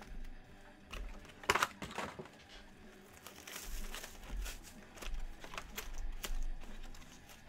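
Trading-card boxes and their plastic wrapping being handled: irregular crinkling and rustling with scattered light taps and clicks, loudest about one and a half seconds in.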